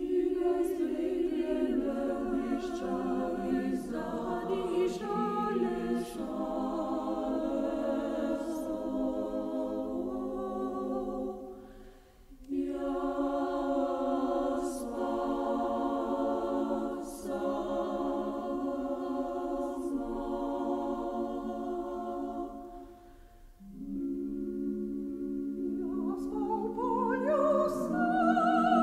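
Mixed choir singing in harmony, in sustained phrases broken by short pauses about twelve and twenty-three seconds in, with the voices climbing in pitch near the end.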